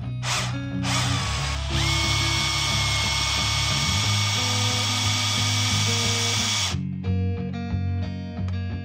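Bosch electric drill spinning a brass rod to wind silver wire into a coil for chain links: a short blip of the motor, then a steady whine that settles at a fixed pitch and stops about seven seconds in.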